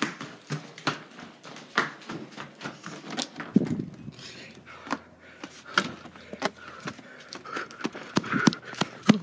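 Quick, uneven footsteps with knocks and bumps as a person hurries through a house, out a door and onto grass.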